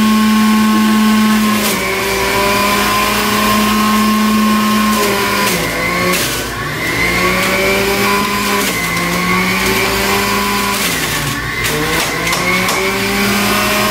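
Breville centrifugal juicer motor running loud, its whine dropping in pitch three times as beets and beet greens are pushed down the feed chute, then climbing back as they are shredded. A few sharp knocks come from the pieces being fed in.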